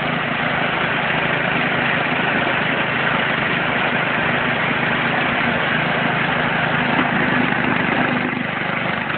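Edco walk-behind floor grinder running steadily: its engine and the grinding head working a concrete surface, at an even pitch with no change.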